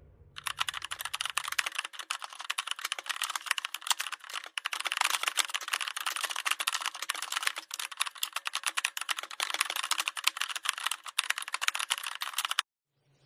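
Fast, continuous computer-keyboard typing: a dense run of key clicks that starts just after the opening and stops abruptly near the end.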